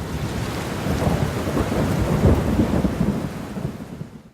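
Heavy rain with a deep rumble underneath, swelling toward the middle and fading out near the end.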